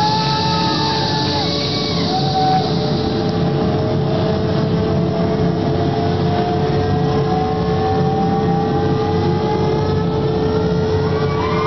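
A spacecraft-style sound effect from the performance soundtrack, played over loudspeakers: a steady throbbing rumble under a held tone, with a whine that rises slowly throughout.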